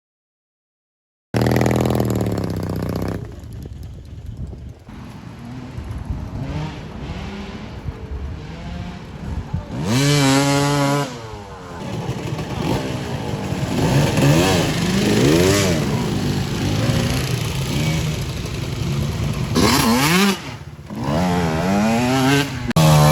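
Small motorbike engines revving up and down over and over, after about a second of silence at the start.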